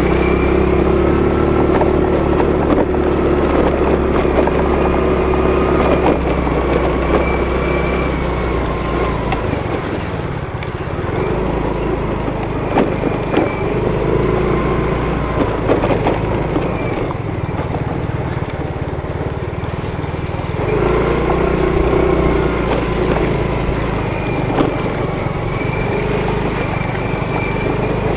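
Motorcycle engine running under way over a rough, muddy road, its pitch rising and falling as the throttle changes, with scattered knocks and rattles from bumps.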